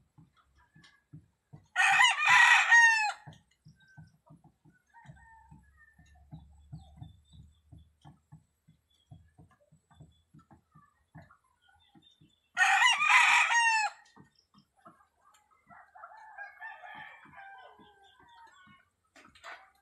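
A rooster crowing twice, each crow lasting about a second and a half, about ten seconds apart.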